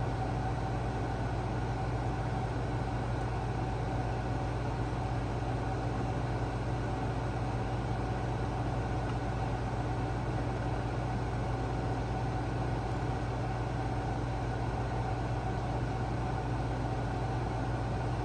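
Steady hum and rush of a room air conditioner and an electric fan running.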